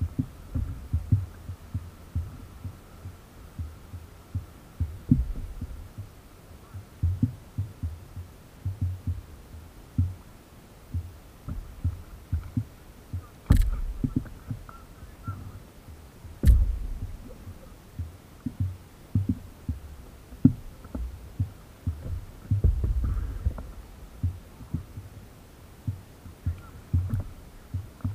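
Irregular, muffled low thumps of water slapping an inflatable stand-up paddleboard, carried through the board into a camera mounted on its deck, with two sharper knocks about three seconds apart near the middle.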